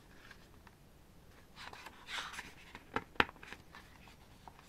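Thick glossy pages of a K-pop album photobook turned by hand: a paper rustle about a second and a half in, then two sharp clicks a moment apart, the second the loudest, as the stiff pages flip over.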